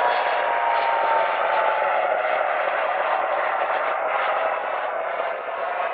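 Jet engines of a Boeing 737 airliner running on the runway: a steady loud rush with a high whine that slowly drops in pitch over the first couple of seconds.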